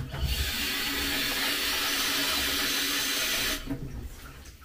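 Kitchen tap running in a steady stream into a dish, filling it with water to soak it so the leftovers don't dry on. The water cuts off about three and a half seconds in.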